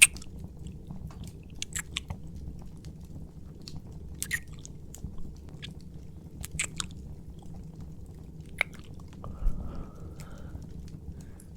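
Close-miked wet kissing and mouth sounds: scattered lip smacks and clicks every second or two, over a steady low hum, with a soft breath near the end.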